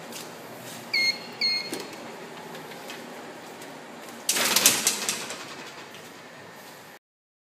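Two short, identical electronic beeps about half a second apart, then a loud burst of rustling clatter about four seconds in.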